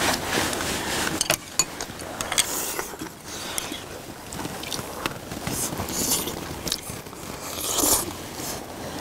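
Several people eating: chewing and mouth noises, with chopsticks and spoons clicking against bowls now and then.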